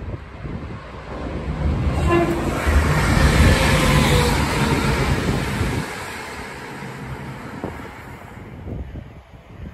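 A diesel multiple unit passes through the station, sounding a short horn blast about two seconds in. Its engine and wheels grow loud as it goes by, then fade after about six seconds.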